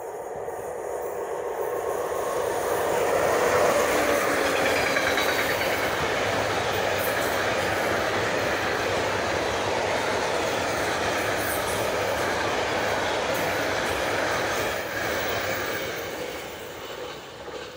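Freight train passing on the rails: it grows louder as the locomotive draws near and goes by about three to four seconds in. A long string of covered freight wagons then runs past with steady wheel-on-rail clatter, and the sound fades away over the last few seconds.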